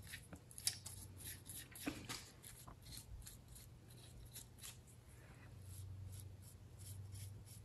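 Faint, quick scratchy strokes and ticks of a small brush dabbing lube onto the threads of ARP main-cap studs, over a low steady hum.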